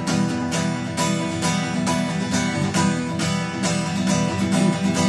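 Instrumental song intro: acoustic guitar strummed in a steady, even rhythm.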